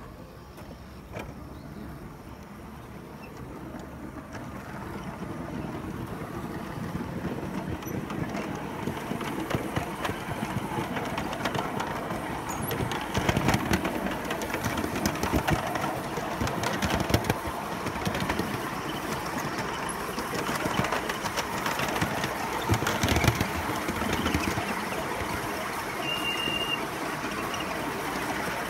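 Ride-on 3.5-inch-gauge miniature train running on its rails, a steady rumble dense with wheel clicks that grows louder over the first several seconds as it picks up speed, with a short high squeal near the end. The track is newly laid and not yet fastened down for this test run.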